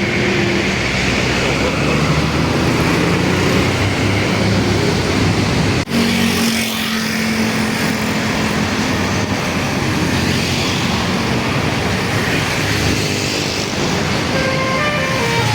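Heavy road traffic with bus engines running past. The sound drops out for an instant about six seconds in. Near the end a bus's telolet horn starts up, a quick run of stepped musical notes.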